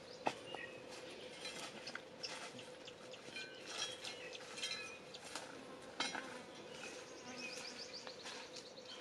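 Dry-forest ambience: a steady insect hum under scattered bird chirps, with a quick falling series of chirps near the end. A sharp click comes just after the start and another about six seconds in.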